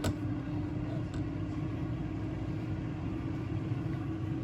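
Steady low hum and rumble of a running kitchen appliance's fan, with a constant tone over it and a light click about a second in.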